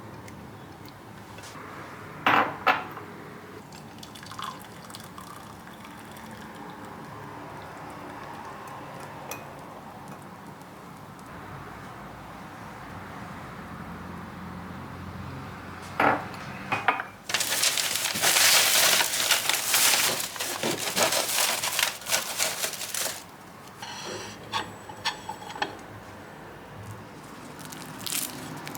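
Kitchen sounds: a few sharp clinks of utensils, then water running from a tap for about six seconds before trailing off.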